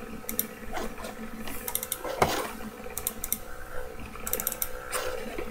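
Computer keyboard keys clicking in short clusters every second or so, with one louder knock a little over two seconds in.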